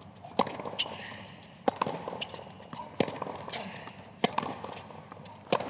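A tennis rally: a tennis ball struck back and forth by rackets, five sharp hits about 1.3 s apart, with fainter ball bounces on the hard court between them.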